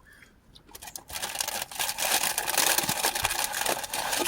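Fast-food paper packaging being handled, crinkling and rustling in a dense crackle that starts about a second in and lasts about three seconds.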